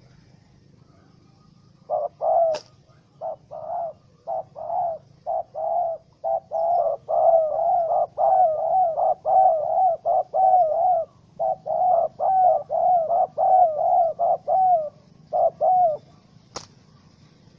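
Spotted dove cooing: a long run of short, wavering low coos that come almost without a break in the middle and end about two seconds before the end. A sharp click sounds about two and a half seconds in, and another near the end.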